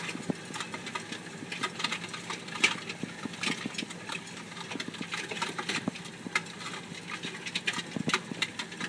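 Narrow vineyard mulch spreader at work: a steady engine hum with frequent irregular clicks and rattles.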